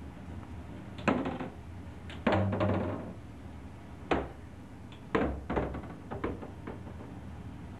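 Wooden kitchen cabinet doors being opened and banged shut in a hurried search, a string of sharp knocks with a longer rattling clatter about two seconds in and a quick run of bangs near the end.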